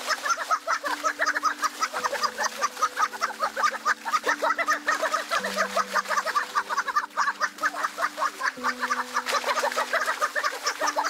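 Background music: held low notes that step to a new pitch about every second, under a fast, steady clucking-like patter.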